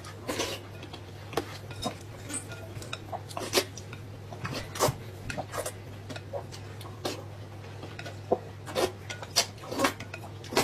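Scattered clinks and scrapes of cutlery against dishes at irregular intervals, over a steady low hum.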